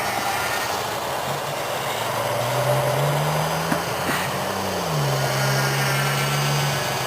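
Electric motor and propeller of an R/C airplane buzzing in flight over a steady rush of outdoor noise. The pitch climbs with throttle about halfway in, then drops back sharply and holds lower.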